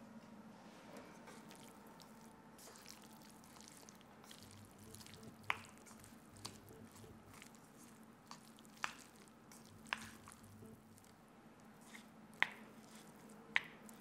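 Chopsticks tossing sauced noodles in a white ceramic bowl: soft wet squishing, with several sharp clicks of the chopsticks knocking against the bowl from about five seconds in.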